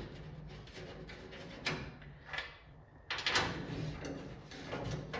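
Metal parts being handled and fitted at a car's front grille: a couple of short clinks, then a longer stretch of scraping and rattling about three seconds in, as a bracket and bolts are worked into place.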